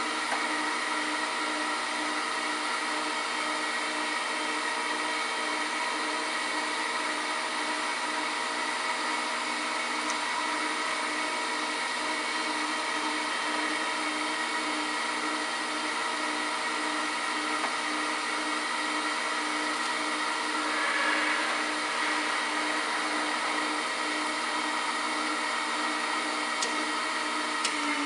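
DoAll G1 automatic hydraulic surface grinder running steadily, a constant motor hum with several steady tones.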